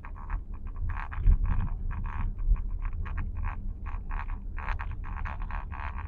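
Rapid, irregular rattling and buzzing from the dashboard of a Nissan X-Trail e-POWER, over a steady low rumble. It is an abnormal dashboard noise.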